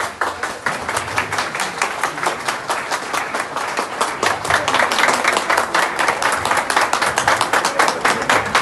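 A crowd clapping and applauding: many sharp hand claps in quick succession, building louder toward the middle.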